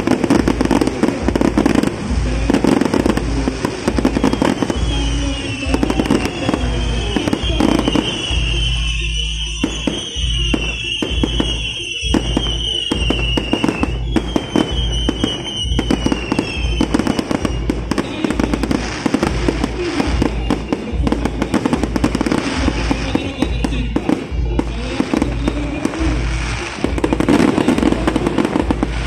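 Fireworks display: a dense, continuous run of bangs and crackling, with a wavering high whistle through much of the first half.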